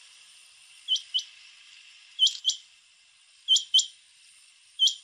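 Rain quail calling: a doubled, whistled note, each a short upward sweep, given four times in pairs roughly every 1.3 seconds, the first pair a little fainter. Under it runs a steady high hiss.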